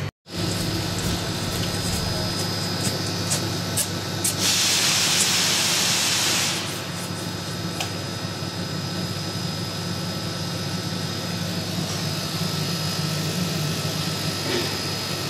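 Laser cutting machine with a Raytools cutting head running with a steady hum. A loud hiss of gas at the cutting head comes in about four seconds in and stops about two seconds later.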